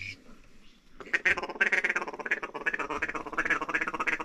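Ducks quacking and chattering in a rapid, unbroken run of short calls, many a second, starting about a second in.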